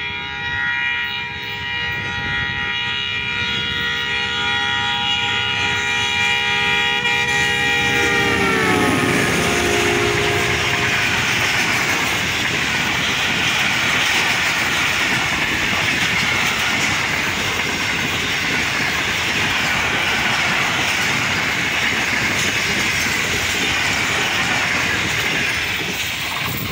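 A ZCU-30 diesel-electric locomotive's multi-tone air horn sounds continuously as it approaches. About eight seconds in, the horn's pitch drops as the locomotive passes. The horn gives way to the loud, steady rush and rail clatter of the express's coaches running through at about 90 km/h.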